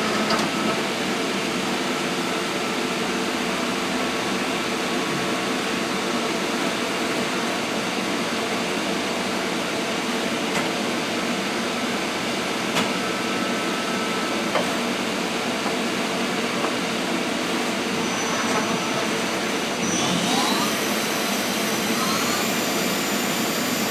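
Goodway GL25 CNC lathe running under power, a steady machine whirr with several steady tones. About twenty seconds in, a higher whine joins and a few short tones rise in pitch.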